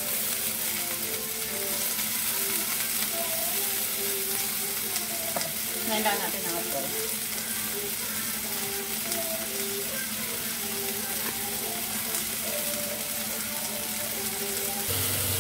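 Chicken breast pieces sizzling steadily as they fry in a little oil in a wok, turned with tongs at the start. A brief louder sound comes about six seconds in.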